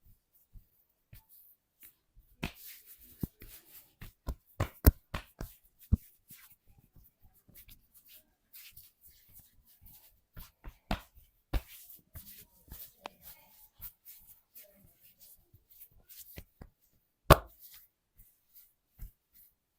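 Hands-on massage sounds: a string of short, sharp slaps, taps and clicks on the body, a quick cluster of them a couple of seconds in and one much louder sharp hit late on.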